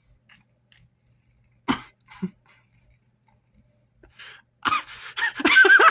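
A person's stifled laughter. A sharp snort comes about a second and a half in, then a short burst, and laughter breaks out in rapid pulses near the end.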